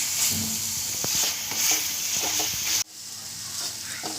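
Chicken fry sizzling in the pan as a spoon stirs it, with small clicks and scrapes of the spoon against the pan; the chicken has cooked down nearly dry. About two-thirds of the way through the sizzle drops suddenly and goes on more quietly.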